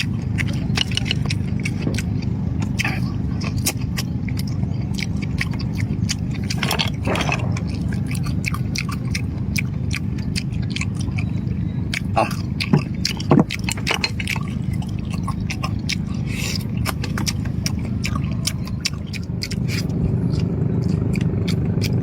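Eating sounds: chewing with scattered small clicks and scrapes, like a spoon in a bowl, over a steady low rumble.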